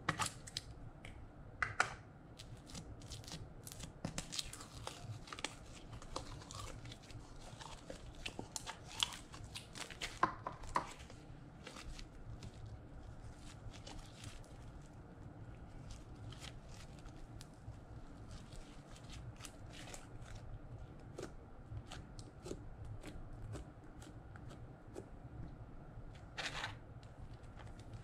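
Hands kneading, squeezing and stretching blue glitter slime with modelling clay mixed in: sticky clicks, crackles and tearing sounds, thick and busy at first and sparser later.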